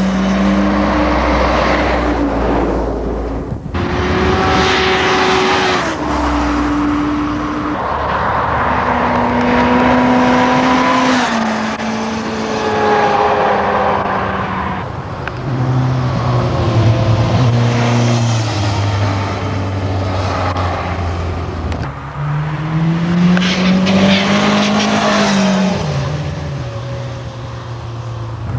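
Sport motorcycle engines running hard as bikes pass through bends one after another, the engine note holding and then jumping to a new pitch again and again with gear changes, and one note rising and falling as a bike sweeps past near the end.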